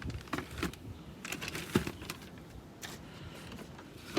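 Packaging being handled by hand: scattered light rustles and small clicks, with one sharper click a little under two seconds in.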